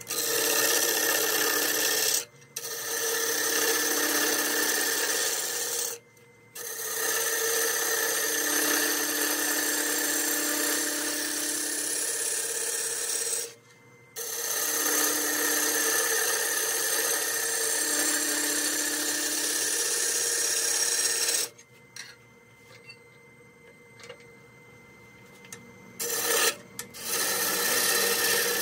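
Turning tool cutting into a spinning ash bowl blank on a wood lathe, a steady rasping shear in long passes. It breaks off briefly three times, and there is a longer lull of about four seconds near the end before cutting resumes.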